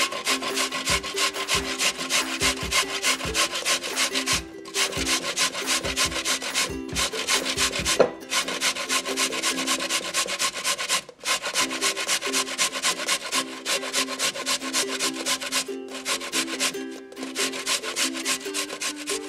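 A carrot being grated on a stainless steel box grater: rapid, rhythmic rasping strokes with a few brief pauses. Soft background music plays underneath.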